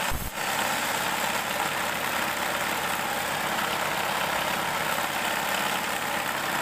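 Table saw running at a steady speed: a constant whir with a low hum beneath, briefly broken right at the start.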